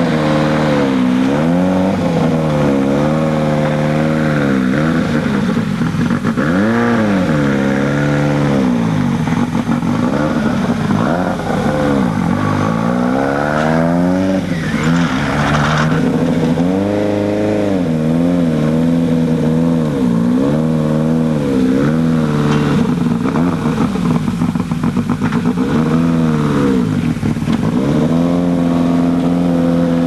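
Ford RS200 Group B rally car's turbocharged four-cylinder engine being revved over and over, the revs rising and falling every second or two.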